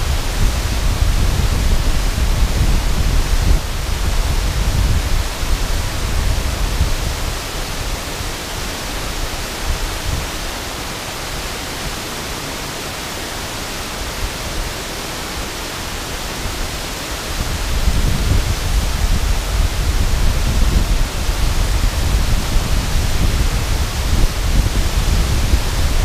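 Steady rush of a river waterfall pouring over a low dam onto rocks. Under it a low rumble comes and goes: strong for the first several seconds, easing in the middle, and back for the last third.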